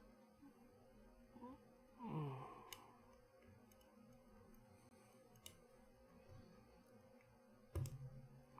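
Faint, sparse clicks of lock picks working in a Tubar vending-machine lock: a few single sharp clicks, near three, five and a half and eight seconds in. A short sigh falls in pitch about two seconds in.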